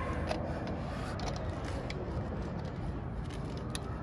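A few faint, light clicks and scrapes of metal parts being handled as a swingarm spool adapter is threaded onto its bolt by hand, over a steady low background rumble.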